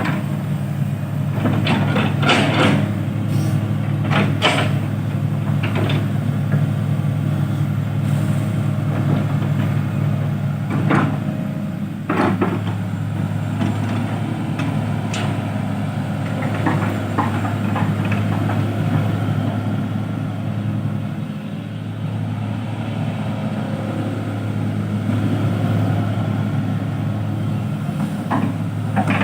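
Excavator's diesel engine running steadily, with scattered metallic clanks and knocks, the clearest about 2, 4.5, 11 and 12 seconds in.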